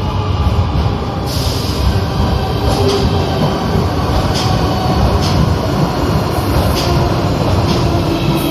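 Madrid Metro train running through the station: a loud steady rumble of wheels and motors, with irregular sharp clicks as the wheels pass over rail joints.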